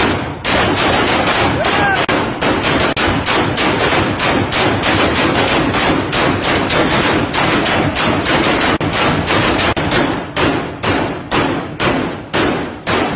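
Celebratory gunfire into the air: several AK-type assault rifles firing a rapid, unbroken string of shots, many a second, that stops just before the end.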